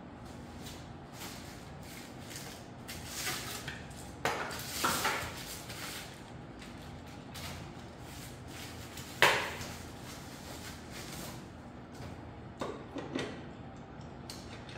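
Bike parts and tools knocking and clinking during assembly of a folding e-bike: scattered clicks and rustles, with one sharp knock about nine seconds in, the loudest of them.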